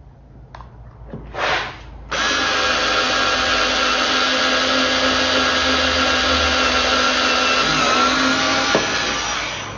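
Vigrue cordless battery screwdriver drilling a hole in pine with a drill bit. It gives a short burst about a second and a half in, then runs at its single fixed speed as a steady motor whine for about seven seconds, the pitch dipping slightly near the end.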